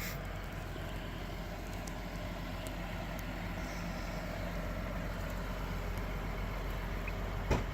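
Steady low hum of a running engine, with a couple of sharp knocks near the end.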